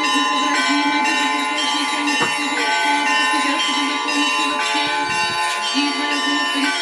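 Russian Orthodox church bells ringing together in a continuous peal, many overlapping bell tones sounding at once.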